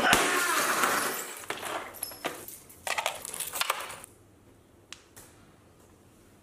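Shattered debris clinking and scraping as a hand pushes it across a tile floor, for about the first four seconds; then it is nearly quiet, with a couple of small clicks.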